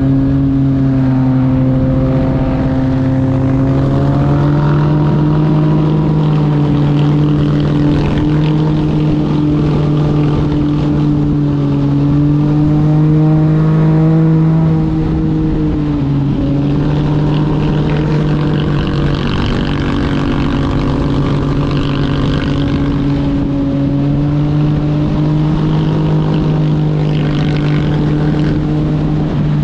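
Honda X-ADV motorcycle's twin-cylinder engine running with a loud exhaust note at a fairly steady pitch, rising a little and then dropping briefly about halfway through before settling again.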